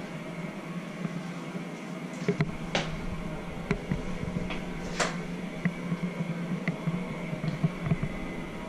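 A steady low hum with a few scattered light clicks and knocks, the sharpest about three and five seconds in.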